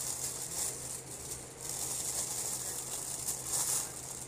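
Thin plastic takeout bag crinkling and rustling in several bursts as it is handled.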